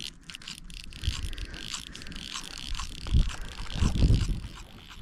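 Fly reel clicking as line is reeled in on a hooked trout, with gusts of wind buffeting the microphone, the strongest about three and four seconds in.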